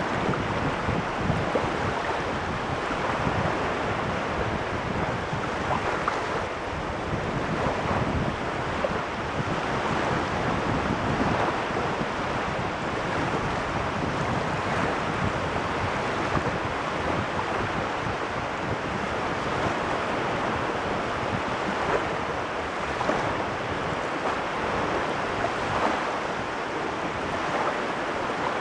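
Waves washing on the Caspian Sea shore in a steady wash of surf that swells and eases slightly, with wind rumbling on the microphone.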